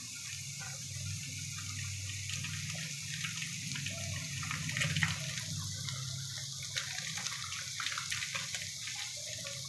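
Spiced cabbage-and-pea vegetable filling sizzling gently in oil in a kadhai, a steady hiss with a few faint clicks near the middle and a low hum underneath.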